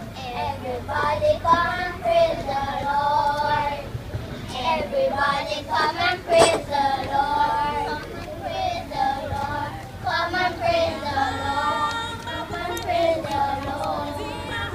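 A small group of young children singing together in unison, with one sharp knock about six and a half seconds in.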